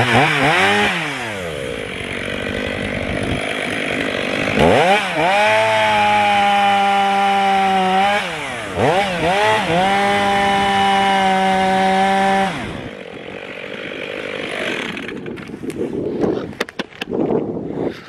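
Two-stroke chainsaw cutting into the trunk of a standing tree during felling cuts. The engine is held at high revs, eases off about a second in, opens up again around four and a half seconds in, dips briefly around eight seconds, then drops off after about twelve seconds. Knocks and handling noises follow near the end.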